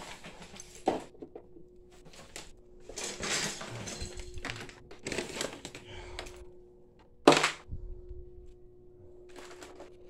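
Plastic upright vacuum cleaners being handled and moved: irregular clattering and rustling with a few knocks, and one loud sharp thunk about seven seconds in.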